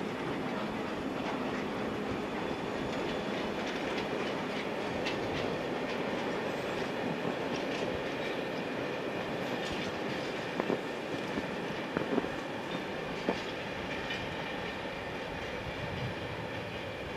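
Electric train rolling past on the line, a steady rumble of wheels on rails with a scatter of clicks, sharper ones twice or three times a little after the middle.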